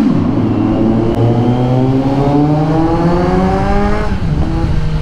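2022 Kawasaki Z900's inline-four engine, breathing through a muffler fitted with a dB killer, accelerating hard through a tunnel. The engine pitch climbs steadily for about three seconds, then drops at a gear change about four seconds in.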